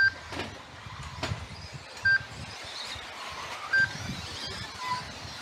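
Short electronic beeps from the race's lap-timing system, three of them, each at one pitch, about two seconds apart. Behind them is the faint whine of 1/10-scale electric 4WD RC buggies racing on the track.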